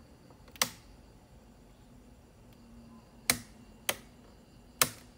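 Four sharp clicks at uneven intervals, two of them close together, over a quiet, steady background.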